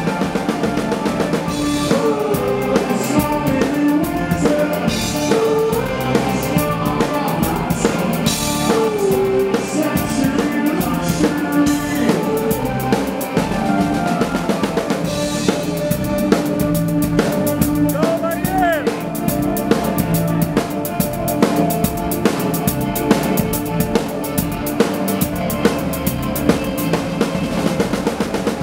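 Live band playing, the drum kit loudest: a steady beat of bass drum and snare with cymbal crashes over electric guitars.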